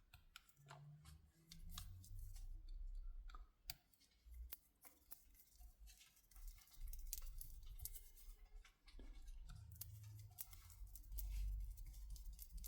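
Faint scattered clicks and ticks of a small screwdriver and handling of an iPhone X as its two bottom screws beside the Lightning port are driven in, with low bumps of handling.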